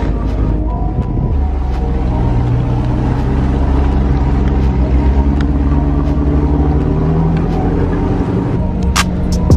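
Land Rover Discovery 1's V8 engine running steadily as the 4WD drives a gravel and bush track, its note climbing a little in the second half. A few sharp clicks come in near the end.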